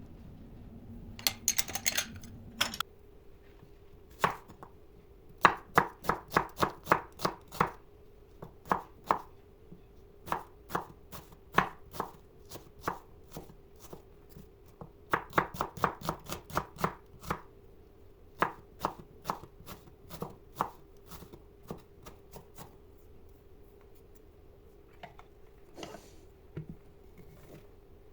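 Knife chopping food on a cutting board in runs of quick, sharp strokes, about three or four a second, with short pauses between runs.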